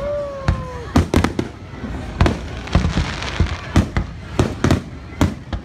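Aerial fireworks bursting overhead in a rapid, irregular string of sharp bangs, at times several a second.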